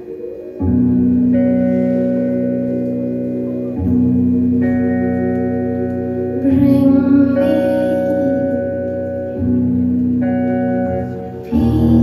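Live band music: slow, held chords from keyboards and electric guitar, with a new chord coming in every few seconds.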